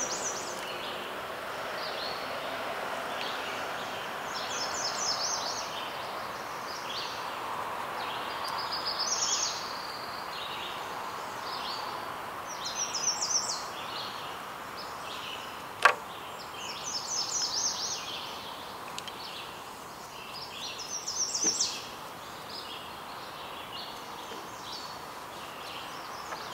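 Songbird singing short high chirping phrases every few seconds over a steady outdoor background hiss, with one sharp click about sixteen seconds in.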